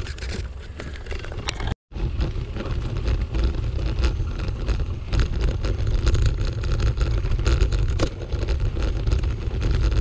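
Riding a bicycle along a gravel forest path: wind rumbles on the microphone while the tyres crackle over the gravel and the bike rattles. The sound cuts out for a moment about two seconds in.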